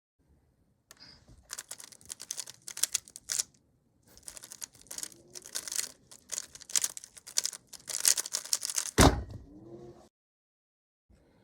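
A 3x3 speedcube being turned fast: a dense run of plastic clicks and rattles for about eight seconds, with a brief lull partway through, ending in a loud thump about nine seconds in.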